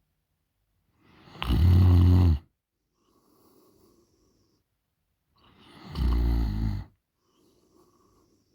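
A woman snoring loudly in her sleep: two deep snores about four and a half seconds apart, each lasting about a second, with a faint breath out after each.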